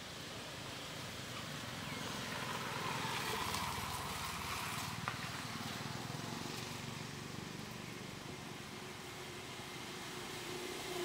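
Engine noise of a motor vehicle passing at a distance, swelling over a couple of seconds and fading again, over steady outdoor background noise; a single sharp click about five seconds in.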